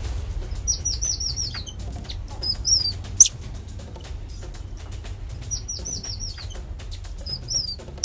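High chirping calls: a quick run of about five falling chirps, then a short two-note phrase, the whole pattern heard twice, over a low steady rumble.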